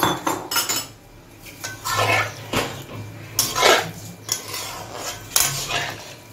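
Metal spatula scraping and knocking against a metal kadai while stirring potol (pointed gourd) and prawns in thin curry gravy, in a series of irregular strokes.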